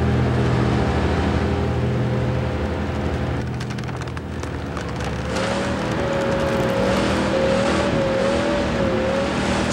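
Cartoon sound effect of a heavy truck's engine rumbling slowly, mixed with tense background music. A patch of crackling clicks comes about halfway through, and a wavering held tone enters in the second half.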